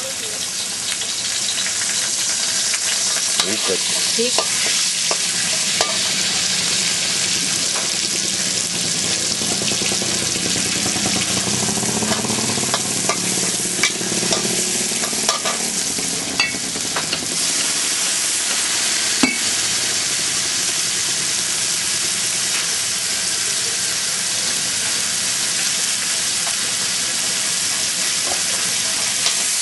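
Crispy pork sizzling steadily in a hot pan while being stir-fried, with occasional sharp clicks of a spatula against the metal.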